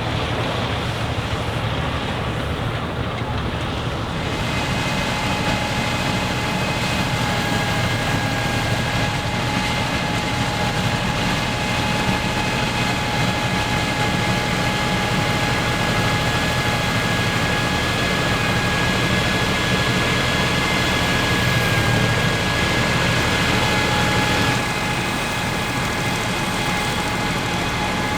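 Deutz F3L514 air-cooled three-cylinder diesel tractor and Claas Super pull-type combine running steadily while threshing wheat. A steady low engine hum carries a whine of several tones, which comes in about four seconds in.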